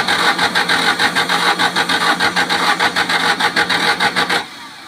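Volkswagen Beetle's starter cranking its air-cooled flat-four engine in a steady rhythm of about six pulses a second without it catching, stopping about four and a half seconds in. The car won't start.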